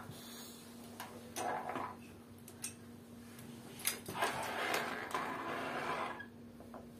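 Microphones on table stands being moved and handled: a few sharp knocks and clicks, then a spell of scraping and rustling about four to six seconds in.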